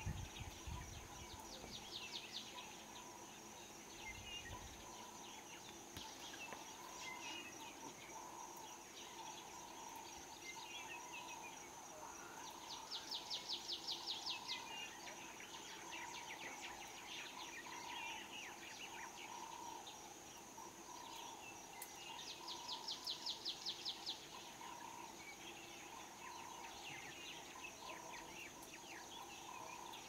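Bush ambience: insects drone steadily and high while birds chirp throughout. Twice, each lasting about two seconds, a bird gives a run of rapid repeated notes that stands out as the loudest sound.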